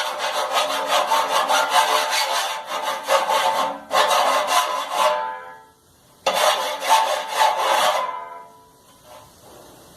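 Hand file rasping back and forth in quick strokes over a sharp edge inside a Brastemp tumble dryer, dulling it so it no longer cuts the drum's friction ring. Three runs of strokes with short pauses between, and a faint ringing under the scrape.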